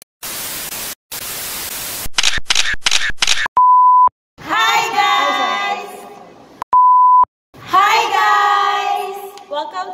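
Video-intro sound effects: two bursts of static hiss, then five quick stuttering static pulses, then a steady beep tone about half a second long. Between that beep and a second identical one, several young women's voices call out excitedly, and they call out again after the second beep.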